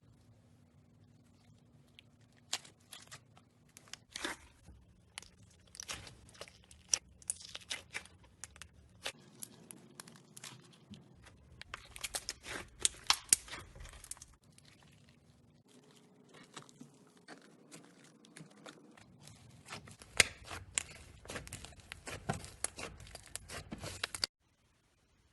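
Slime being squeezed, stretched and pressed, giving dense irregular crackling and popping clicks across several short clips. The sound cuts off abruptly near the end.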